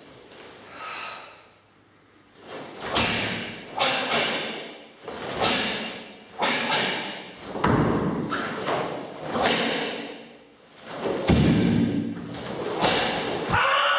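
Karate kata techniques: the cotton gi snapping with each block and strike and bare feet thudding on foam mats. A quiet start, then about a dozen sharp sounds roughly a second apart, some with a heavier thud.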